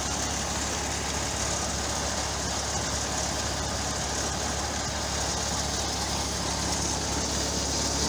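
Tractor-driven wheat thresher running steadily: a constant low engine hum with an even rushing noise from the spinning threshing drum and belt drive over it.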